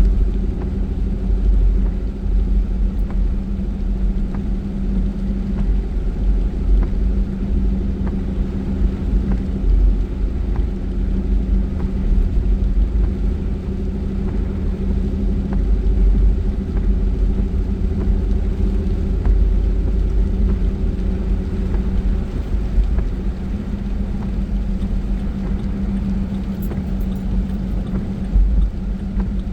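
Car being driven: a steady low road rumble with a constant engine drone.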